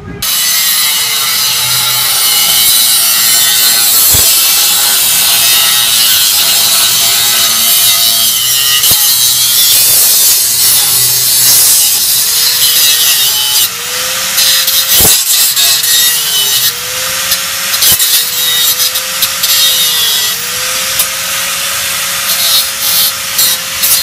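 Handheld cut-off grinder cutting through the car's metal exhaust pipe, a loud continuous grinding whine. In the second half its pitch repeatedly dips and recovers.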